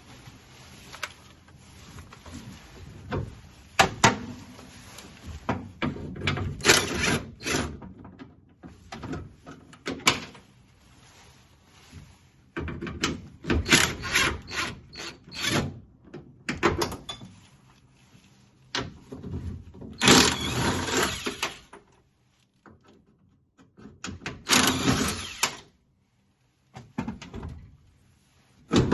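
Irregular metal knocks, rattles and scraping bursts as a car door's window regulator is worked loose and pulled about inside the steel door shell.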